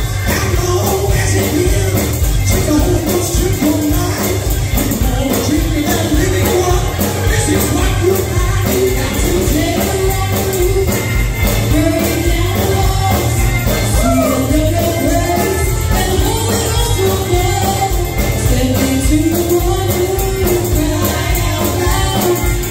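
Gospel music with a voice singing over heavy bass and a steady tambourine.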